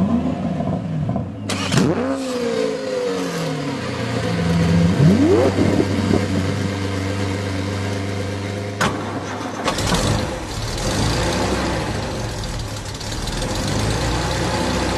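2014 Buick LaCrosse engine running, revved briefly twice in the first few seconds, with a sharp click about nine seconds in.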